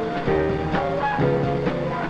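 Upbeat film soundtrack music with plucked guitar-like notes over a steady bass.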